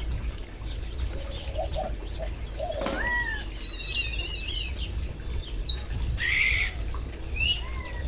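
Wild songbirds chirping and calling with short upswept notes, a fast warbling phrase about halfway through and a short harsh, noisy burst about three quarters of the way in, over a steady low rumble.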